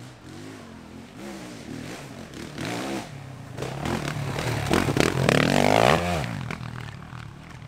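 Enduro motorcycle engine revving up and down in repeated bursts. It gets louder to a peak about five to six seconds in, then fades.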